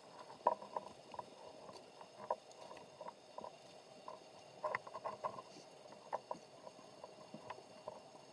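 Irregular soft clicks and knocks heard underwater through a camera's waterproof housing, a few coming in quick clusters, over a faint steady hiss.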